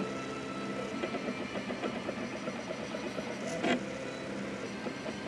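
Small stepper motors of a homemade CNC pen plotter built from DVD/CD drive mechanisms, buzzing in rapid fine steps as the pen draws letters. A sharp click about three and a half seconds in.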